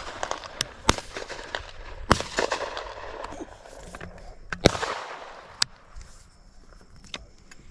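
Shotguns firing at doves: a string of sharp shots, some close and some farther off, each trailing off in an echo. The loudest comes about four and a half seconds in.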